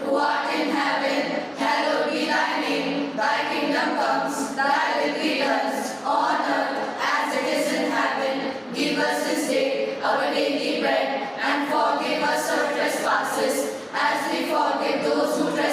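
Voices singing together without instruments, in long phrases with brief pauses between them, like a devotional chant or prayer song.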